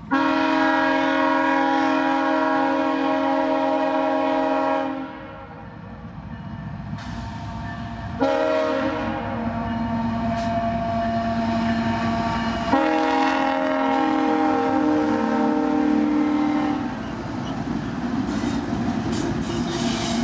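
Freight locomotive's multi-note air horn sounding three long blasts as the train approaches a grade crossing; the last two blasts run almost together. Near the end the locomotives pass close by with a rumble and rail clatter.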